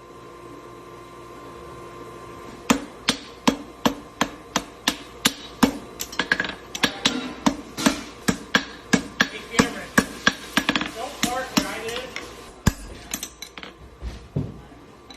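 A hammer strikes hot steel on an anvil while a horseshoe is forged by hand, in a steady rhythm of about three ringing blows a second. The blows start about three seconds in, after a steady hum, and thin to a few scattered blows near the end.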